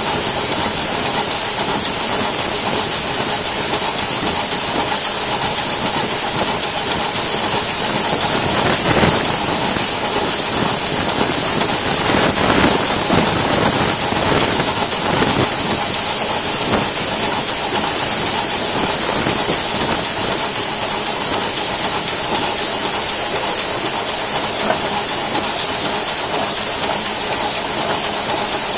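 Crown 2-foot-gauge steam locomotive under way, with a loud, steady hiss of steam.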